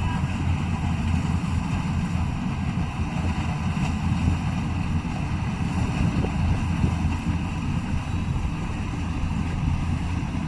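Yanmar AW70GV combine harvester running steadily, a continuous low engine rumble.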